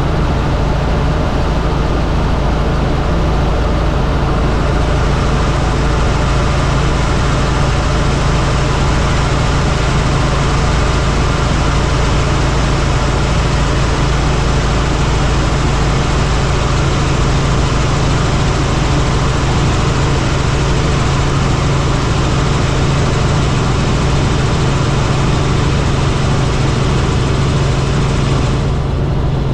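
Helicopter in flight: a steady, loud drone of engine and rotor.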